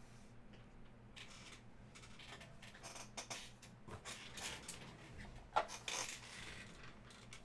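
Rustling and scraping from cards and packaging being handled, with a sharp click about five and a half seconds in and another just after.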